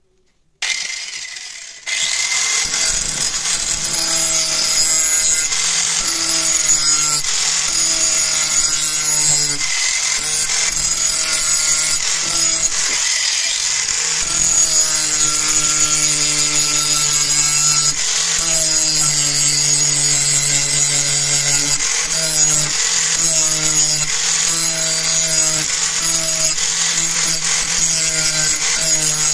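Angle grinder with an abrasive disc grinding the steel edge of an axe head. It starts about half a second in and then runs steadily, its motor tone stepping down and back up every second or two.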